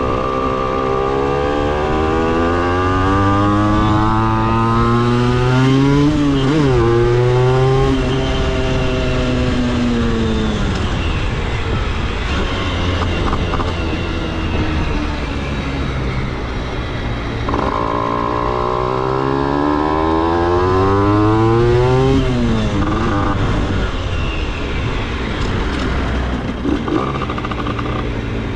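Aprilia RS50's 50cc two-stroke single-cylinder engine revving up under acceleration, its pitch climbing for several seconds and then falling away. This happens twice, with a steadier, lower-revving stretch in between.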